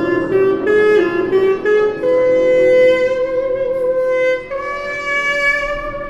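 A reedy wind instrument playing live improvised music: a quick run of short notes, then a long held note with a slight waver, then a step up to another held note about four and a half seconds in.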